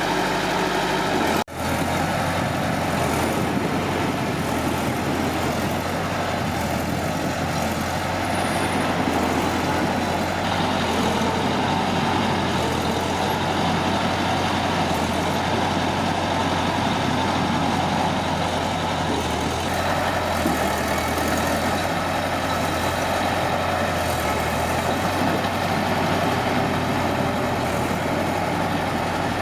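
Heavy diesel engine running steadily, with a brief break in the sound about a second and a half in.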